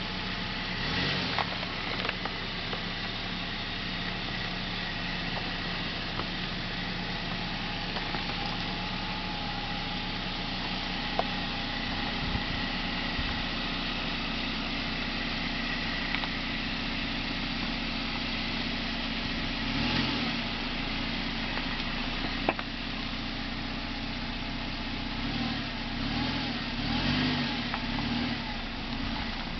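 Jeep Patriot's four-cylinder engine running at low revs as the SUV crawls over loose rock, with a few sharp knocks from stones under the tyres. The engine picks up a little near the end.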